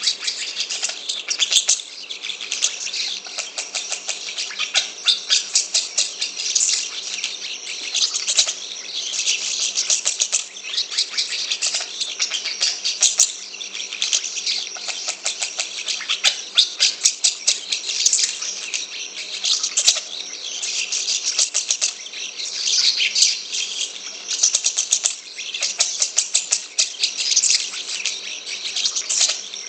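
Asian pied starling singing nonstop: a fast, dense stream of high-pitched chattering notes with no break.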